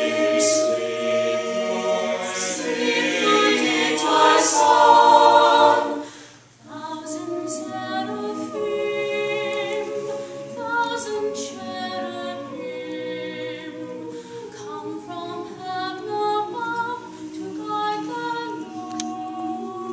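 Mixed choir of men's and women's voices singing a cappella. A phrase swells to its loudest about five seconds in and breaks off briefly near six seconds, then the singing resumes more softly.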